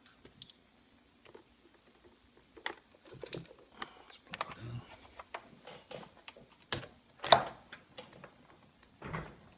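Scattered clicks and knocks of a plastic feeding pump being handled and turned on a bench, with one louder knock about seven seconds in.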